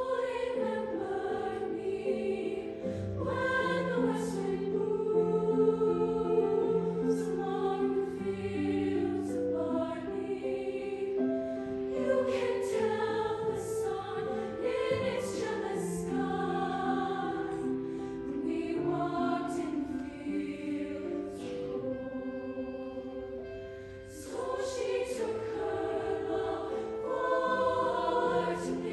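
Show choir singing a slow passage of long held chords in many voices. The singing thins out briefly near the end and then comes back in.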